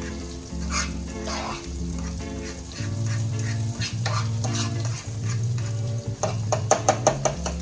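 Food frying and sizzling in a pan while a utensil stirs and scrapes against it, ending in a quick run of sharp clicking taps near the end.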